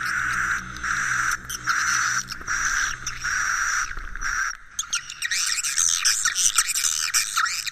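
Swiftlet roosting-lure recording (suara inap) of swiftlet calls. It starts as buzzy chirps repeated in a steady pulse about every 0.7 s. Just past the middle it switches to a busy twittering chorus of many rising and falling chirps. The track is played in swiftlet houses to coax the birds to roost.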